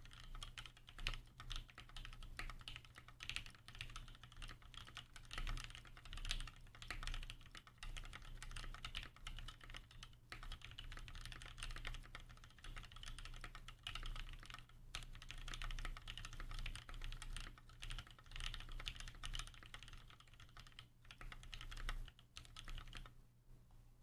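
Continuous fast typing on a custom mechanical keyboard with lubed Gateron Black Ink linear switches on a full polycarbonate plate, capped with GMK keycaps. The keystrokes thin out near the end.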